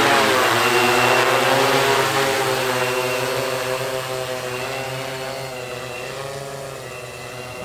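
Large quadcopter with Cobra 4010 350kv motors and T-motor 1530 propellers lifting off and climbing away, its propellers buzzing with a wavering pitch. The sound fades steadily as it gains distance.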